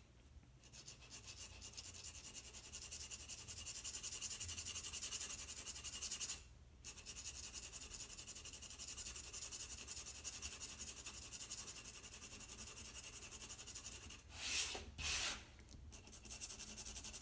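White charcoal pencil rubbing on black drawing paper in quick back-and-forth shading strokes, building up a layer of white tone. It breaks off briefly about six seconds in, and there are two louder swishes near the end.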